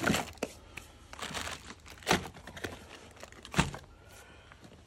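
A cardboard box being opened and its packaging handled: rustling and crinkling with a few sharp crackles, the loudest near the start, about two seconds in and about three and a half seconds in.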